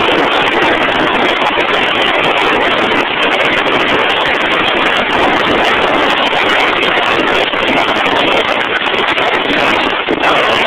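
Loud, steady machinery noise from a drill rig running, an even rush without distinct knocks or changes.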